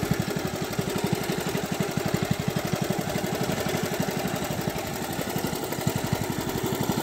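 1969 Cub Cadet Model 72 garden tractor's 7 hp single-cylinder Kohler engine idling with a steady, even firing beat.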